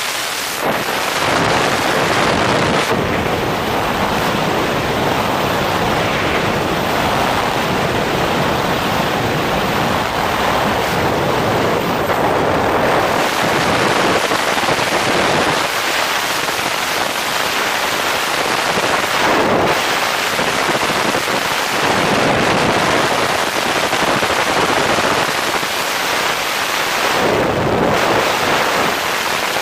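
Skydiving freefall wind rushing over the camera's microphone: a loud, steady buffeting rush of air.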